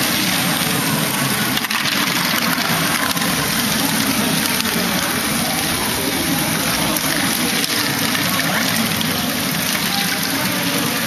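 Steady, dense rattling of a LEGO Technic Great Ball Contraption at work: many small plastic balls rolling and dropping through the modules while the motor-driven lifts and chain conveyors run.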